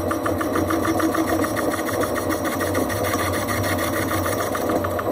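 Holbrook C8 metal lathe running and taking a light finishing cut, with a fast, even ticking over its steady running sound. It is making weird noises, which the operator meets with more oil.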